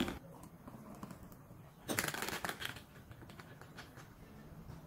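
Frothy egg-white pisco cocktail poured from a metal cocktail shaker into a glass, with the ice inside the shaker rattling in a short burst about two seconds in and a few lighter clinks after.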